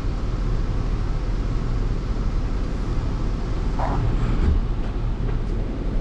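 Motorhome engine running with road noise, heard from inside the cab while it drives slowly: a steady low rumble.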